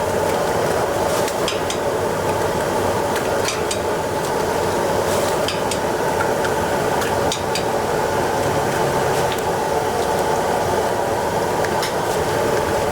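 Commercial kitchen cooking: a loud, steady rushing roar, with scattered sharp clicks of utensils against pans.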